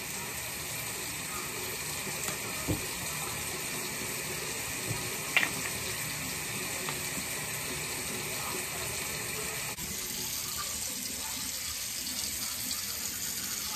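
Bathroom tap running steadily into a sink, with a couple of brief clicks.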